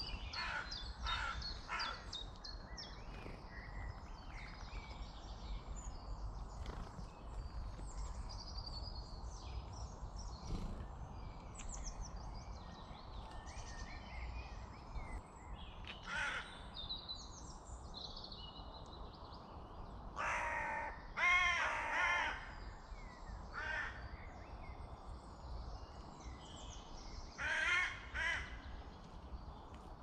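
Woodland birds calling and singing, with several louder calls standing out: a run of them about two-thirds of the way through and another pair near the end.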